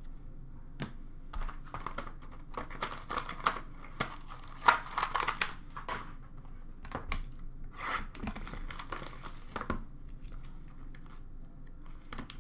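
Clear plastic card sleeves and packaging being handled, crinkling and rustling in irregular bursts with a few sharp clicks. The bursts fade out near the end.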